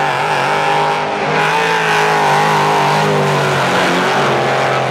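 Drift cars' engines revving hard through a tandem slide, the engine notes sagging and rising, over the hiss of tyre noise.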